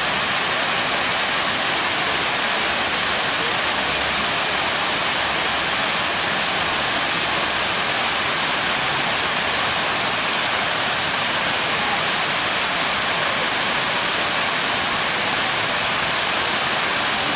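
Large tiered fountain: water jets and water spilling down the stepped tiers, a steady, even rush of splashing water.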